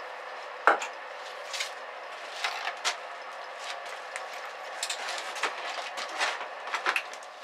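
Scattered light clicks and knocks of tools being handled at a workbench vise, over a steady hum.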